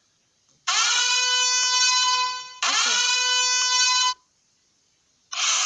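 A horn notification sound played back: two long, steady horn blasts, each with a short upward slide in pitch as it starts. A burst of loud music cuts in near the end.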